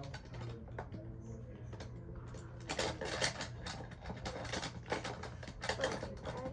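Hard plastic clicking and rattling as a toy car-wash playset and its toy cars are worked by hand: irregular taps and clacks, sparse at first and busier from about the middle on.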